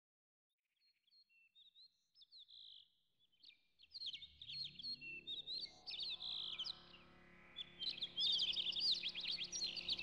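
Birds chirping in quick, high twitters, sparse and faint at first, then dense and louder from about four seconds in, over a steady low hum.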